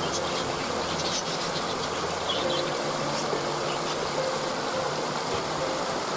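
Waterfall running with a steady rush of water, with a few faint bird chirps in the first half.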